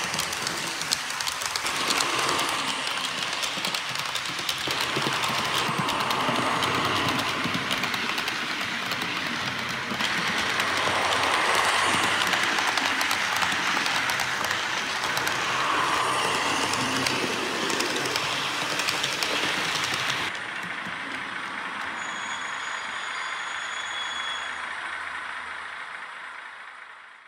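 HO-scale model trains running: Corail coaches rattling and clicking over the track close by, with the sound decoder of a BB 67400 diesel locomotive model (ESU V5) playing diesel engine sound. About twenty seconds in it turns quieter and duller, and it fades out at the end.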